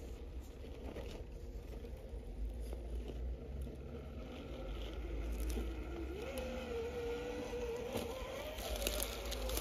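Axial Capra 1/10 RC rock crawler's Hobbywing Fusion SE motor and gears whining at crawling speed, the whine wavering in pitch with the throttle from a little past halfway. Tires and chassis scrape and click over the rocks throughout.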